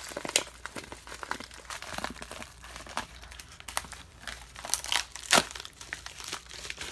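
Plastic bag crinkling and crackling as it is handled and pulled open by hand, in irregular sharp crackles; the loudest comes about five and a half seconds in.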